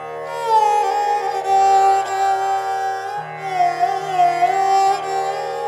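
Background instrumental music in an Indian classical style: a string melody that glides between notes over a steady drone.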